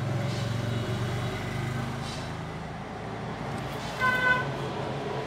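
Nokia 3310 (TA-1030) mobile phone giving one short electronic beep about four seconds in, the tone it sounds when a charger is connected and charging begins, over a steady low background hum.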